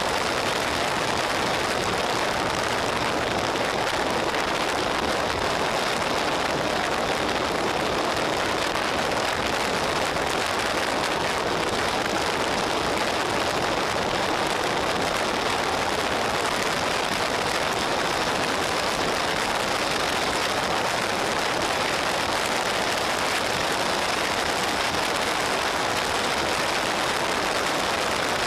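Steady rush of wind over a motorcycle-mounted camera's microphone at freeway speed, mixed with road noise, with no engine note standing out.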